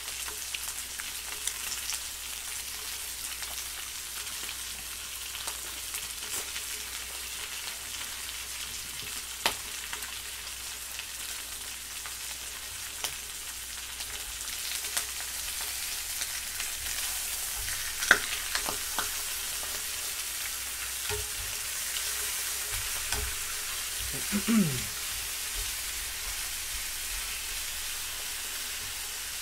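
Pork belly strips sizzling in a frying pan, a steady hiss that grows a little louder about halfway through after the strips are turned. A few sharp clicks of metal tongs against the pan come as the meat is flipped.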